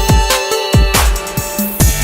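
Electronic dance music with a heavy beat and bass line.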